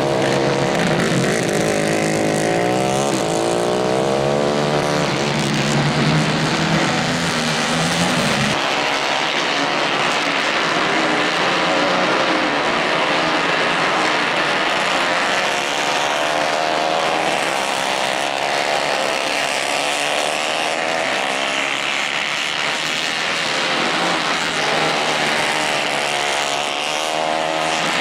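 Several 150 cc racing kart engines running hard, their pitch rising and falling as they accelerate and lift through the corners. One kart is loud and close at first, and it drops away about eight seconds in, leaving several karts further off.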